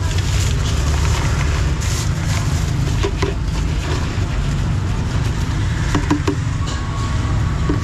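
Steady low rumble of street traffic and engines, with a few light clicks and knocks on top.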